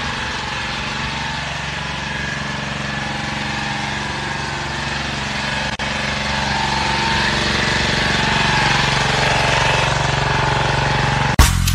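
An engine running steadily: a low, even hum with a hiss of noise over it, broken for a moment about six seconds in. Music with a strong beat cuts in right at the end.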